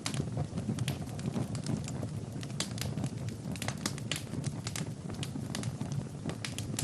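Wood fire burning in a fireplace: many irregular crackles and pops over a low, steady rumble of the flames.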